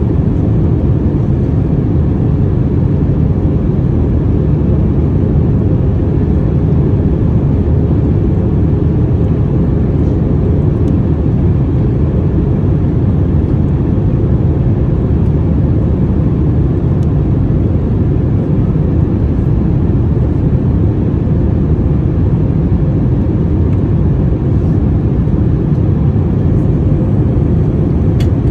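Steady in-flight cabin noise of an Airbus A321-200 airliner: engine and airflow noise, deep and even, with a faint steady hum.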